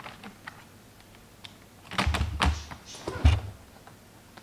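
Clicks and low thumps of hands working on an open laptop while fitting a RAM module into its memory slot, in two short clusters about two and three seconds in.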